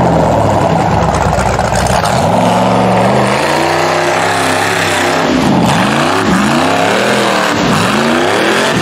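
Rock bouncer buggy's engine revving hard under load on a steep rocky climb, its pitch rising and falling several times as the driver works the throttle.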